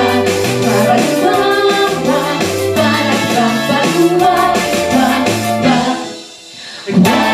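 A song sung over an instrumental backing. It fades away about six seconds in, and a new instrumental passage starts abruptly near the end.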